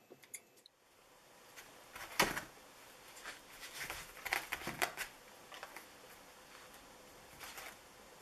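Faint handling sounds: a few light scissor snips trimming a wool string-silencer puff, then irregular soft taps and rustles as fingers work the puff on the bowstring.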